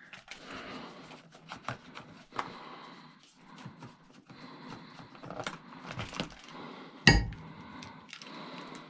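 Small clicks, clatter and scraping of tools and chainsaw parts being handled and unscrewed during disassembly, with one loud knock about seven seconds in.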